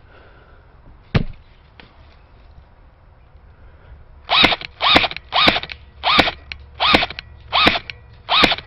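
An airsoft gun fires single shots in steady succession, about one every two-thirds of a second, from about four seconds in. Each shot is a sharp snap followed by a brief mechanical whir. A single sharp crack comes about a second in.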